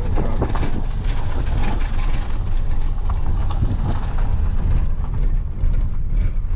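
Steady low rumble of road and wind noise heard from inside the cabin of a car driving at highway speed.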